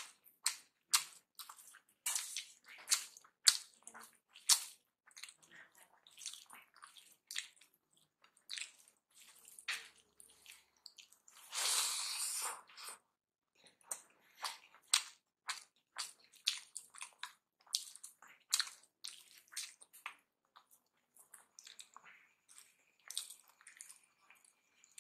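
Close-up eating sounds of rice, mashed potato and dal eaten by hand: wet chewing, lip smacks and squishing of food between the fingers, a quick irregular run of short clicks. Near the middle a longer, louder noisy sound lasts about a second and a half.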